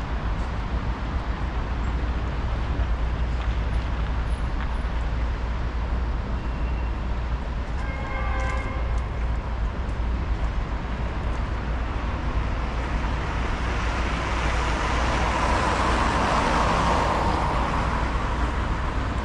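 City street traffic noise with a steady low rumble. A vehicle passes close, swelling to its loudest a few seconds before the end and then fading. A brief tone sounds about eight seconds in.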